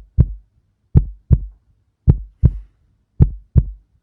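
Heartbeat sound effect: a steady lub-dub double thump about once a second.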